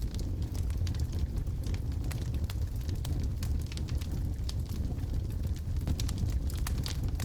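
Wood fire in a fireplace burning steadily: a low rumble of flame with many sharp, irregular crackles and pops from the logs.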